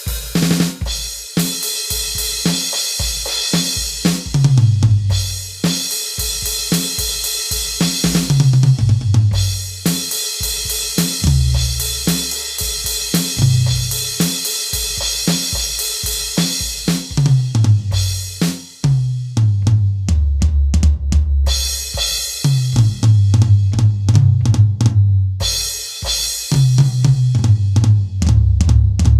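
Rock drum kit playing a steady groove on its own, without other instruments: bass drum, snare, hi-hat and cymbals, with short breaks in the pattern twice.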